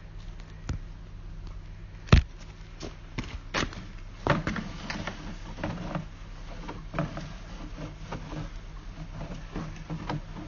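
Irregular clicks and knocks, the loudest about two seconds in, over a steady low hum: a sewer inspection camera's push rod and camera head being moved through a sewer lateral, the head bumping along the pipe.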